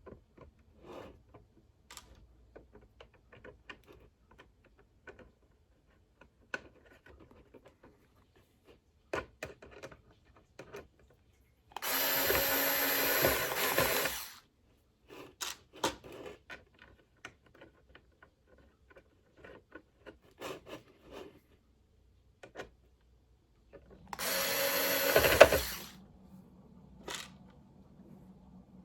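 Hyper Tough cordless screw gun driving screws, in two runs of about two seconds each, one midway and one near the end. Light clicks and handling of small parts come in between.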